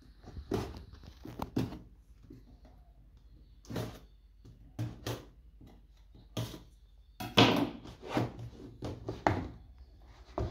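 Kitchen knife cutting the seal stickers on a cardboard smartphone box, and the box being handled on a desk: a series of short scrapes and knocks, the loudest about two-thirds of the way in.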